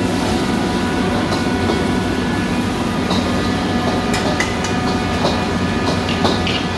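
Busy open stall kitchen: a steady, loud mechanical rushing noise from the cooking equipment, with scattered short clinks of metal utensils, about a second in and several times in the second half.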